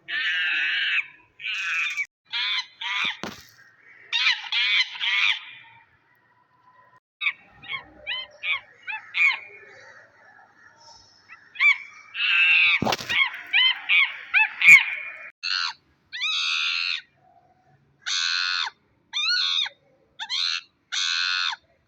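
Monkey calls: a run of short, high-pitched screeches and chatters, repeated in quick bursts, with a quieter, sparser stretch in the middle.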